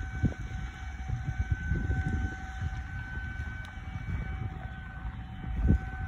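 Distant Federal Signal 2001-130 electromechanical tornado siren holding one steady pitch on a test, swelling and fading only slightly because its broken rotator leaves it not rotating. Wind rumbles on the microphone underneath.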